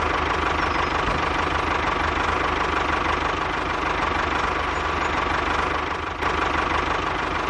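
A small engine running steadily with a fast, even rattle, dipping briefly about six seconds in.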